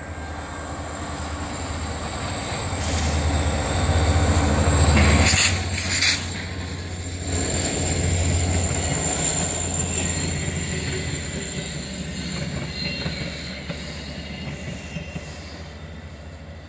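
VIA Rail diesel-hauled passenger train passing close by: a heavy low rumble builds to its loudest about four to six seconds in as the head end goes by, then the cars roll past with a thin high wheel squeal, the rumble slowly fading.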